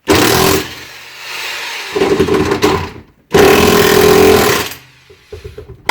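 Impact wrench running down bolts in three bursts with a hammering rattle, the last and longest about a second and a half, followed by a few short blips near the end.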